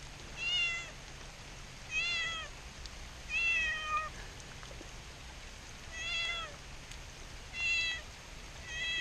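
A stray domestic cat meowing six times, with about a second or so between calls, each call rising and then falling in pitch. These are the distress cries of a frightened, lost cat.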